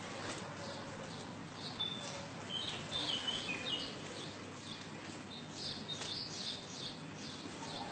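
Birds chirping in short high notes, a cluster about two to four seconds in and more around six seconds, over steady outdoor background noise.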